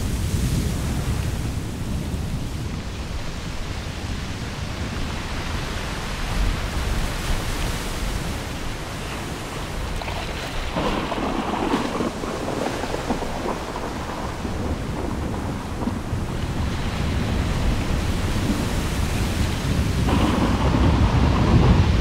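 Thunderstorm recording: steady rain with rolling thunder, which swells about halfway through and again near the end.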